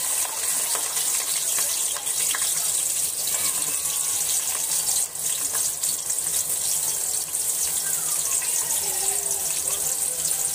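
Sliced onions frying in hot oil: a steady sizzle with scattered crackles.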